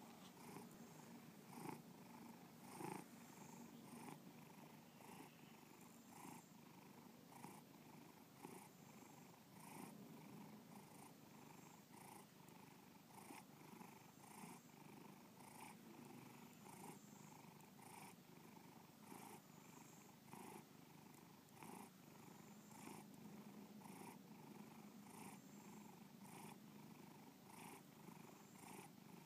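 Domestic cat purring steadily and faintly, with a regular pulse about once a second.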